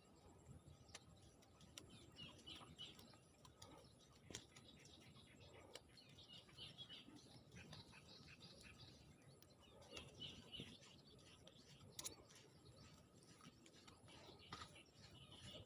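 Faint bird chirps in short bursts every few seconds over quiet background noise, with scattered small clicks.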